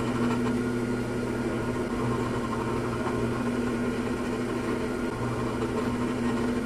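Electric motor of a woodshop machine running steadily at constant speed with a steady hum, no cutting load heard.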